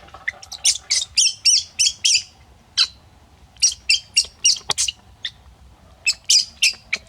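A pet monkey giving short, shrill squeaks that rise and fall in pitch, in three quick runs of several calls each.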